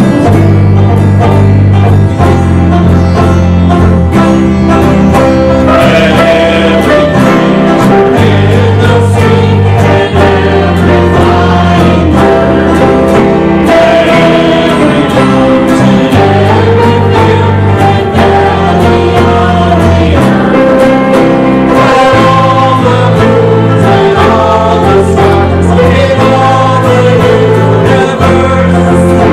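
A congregation singing a hymn together, with instrumental accompaniment over a steady bass line.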